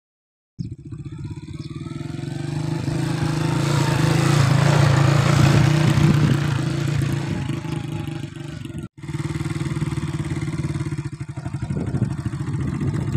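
Small single-cylinder motorcycle engine running, starting about half a second in and swelling to its loudest around the middle before easing off. A short break about nine seconds in, then it runs on steadily.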